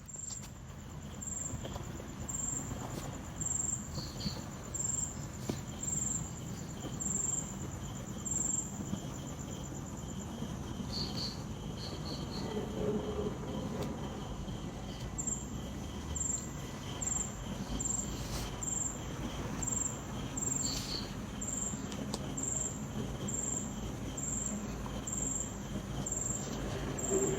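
Crickets chirping at night, one high chirp about every second, pausing for a few seconds midway and then resuming, with a few shorter chirps from other insects. Underneath runs a steady low rumble of wind.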